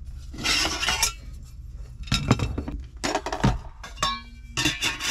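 Metal cookware and utensils handled while a meal is being prepared: a rustle about half a second in, then clinks and knocks, with one short ringing clink about four seconds in and more clatter near the end.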